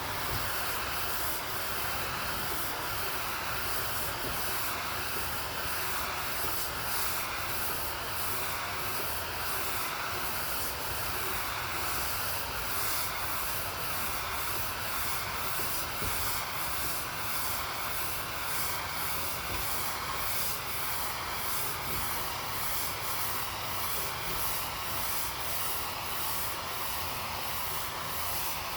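Water spraying from a pressure washer wand fed only by the outdoor faucet, with the machine's engine off, making a steady hiss with a faint regular pulsing.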